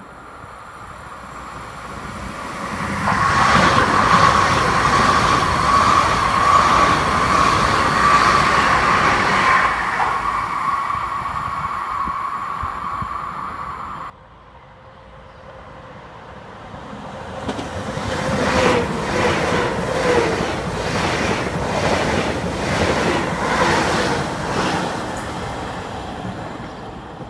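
Two electric passenger trains passing through stations at speed, one after the other. The first runs by with a rushing rumble and a steady high whine and is cut off suddenly; the second's wheels clatter rhythmically over rail joints, about twice a second, as it rushes past.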